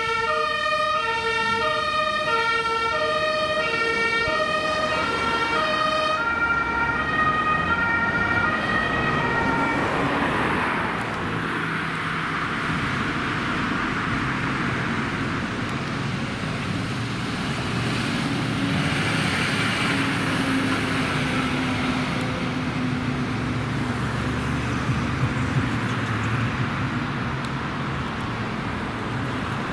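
Two-tone emergency siren (German Martinshorn) on an ASB emergency doctor car, sounding two alternating pitches and fading out over the first ten seconds or so as the car drives away. After that, road traffic noise with the low engine rumble of a passing fire engine.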